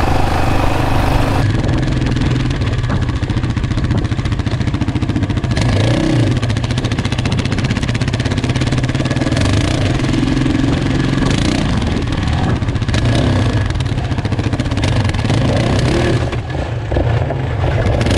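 Yamaha Raptor 700 sport ATV's single-cylinder four-stroke engine running under throttle along a dirt trail, revving up and down as it rides.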